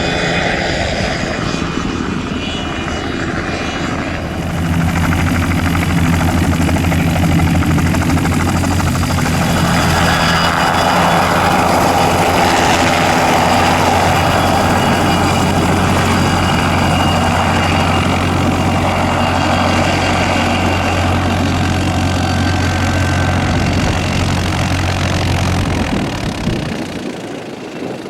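Light aircraft engine and propeller running close and loud with a steady low drone, growing louder about four seconds in and fading away near the end.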